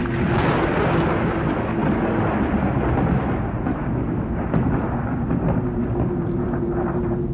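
A thunderclap that breaks suddenly and rolls away over several seconds, over a low steady drone that stands out again near the end.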